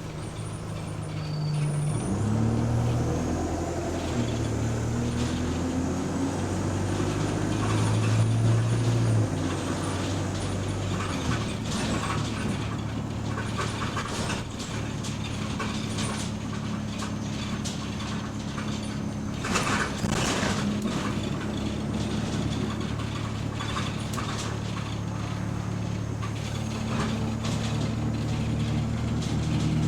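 City bus engine heard from inside the bus, pulling away and speeding up, its note rising in steps through the gears. It then settles into a steady drone while cruising. Rattling from about twelve seconds in, with a brief loud burst of noise around twenty seconds in.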